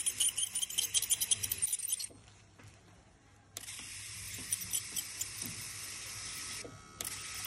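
Ultrasonic dental scaler tip working on a dog's teeth: a high-pitched hiss with rapid crackling. It runs for about two seconds, stops for about a second and a half, runs again for about three seconds, then comes back briefly near the end.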